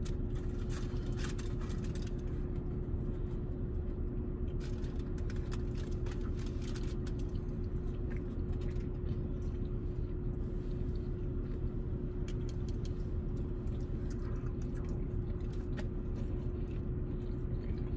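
Steady low hum inside a car cabin, with a faint steady tone, under scattered small clicks of plastic forks and takeout containers and quiet chewing.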